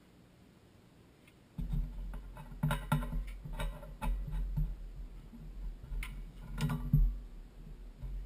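Scattered light clicks and knocks of metal pipe fittings being handled on a well pressure-switch line, over a low rumble of movement, starting about a second and a half in.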